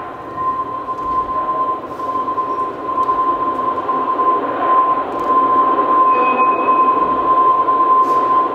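Loud, steady rushing noise with a constant high-pitched whine running through it, swelling slightly and then dropping in level near the end.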